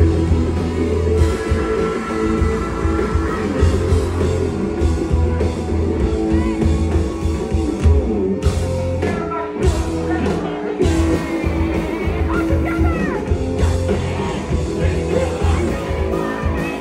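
Live punk rock band playing loudly: distorted electric guitars, bass and drums with a singer, heavy in the bass.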